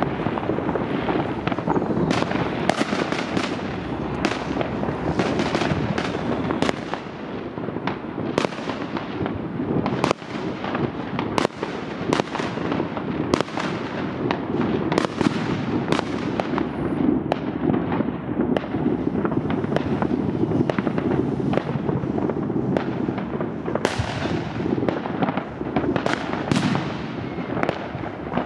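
Aerial fireworks going off without a break: many sharp bangs close together over a dense, continuous crackle.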